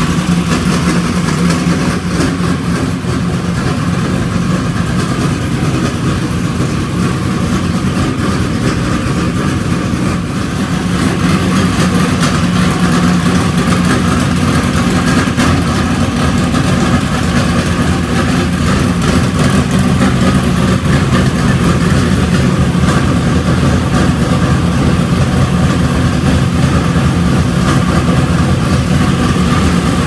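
Race car engine running steadily, a little louder from about eleven seconds in.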